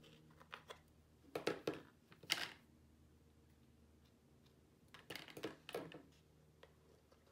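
Small clicks and taps of hands handling a glue tube and a clear plastic dish lid while dispensing glue: a short cluster about a second and a half in, a sharper tap just after two seconds, and another cluster about five seconds in.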